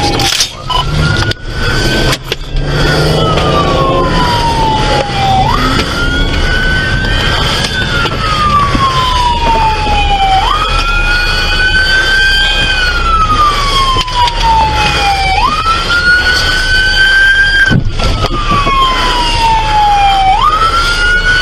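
Police car siren on a slow wail: each cycle jumps up quickly and then slides slowly down, repeating about every five seconds. Fainter sirens sound behind it, over steady road and engine rumble, with a few knocks in the first two seconds.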